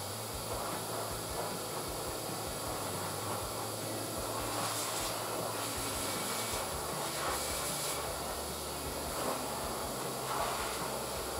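Dog-grooming blower dryer pushing air through its hose into a St. Bernard's wet coat: a steady rushing hiss that grows a little brighter for a few seconds in the middle.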